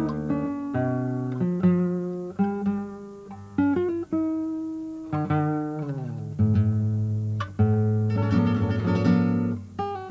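Solo classical guitar playing plucked single notes and chords that ring and die away. About five seconds in, the notes slide downward in pitch, and around eight to nine seconds in comes a quick burst of rapidly repeated strokes.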